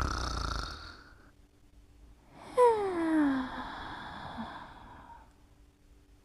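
A sleeper snoring. A rasping inhale snore tails off in the first second. About two and a half seconds in comes a breathy exhale carrying a tone that falls in pitch, and it fades out over the next few seconds.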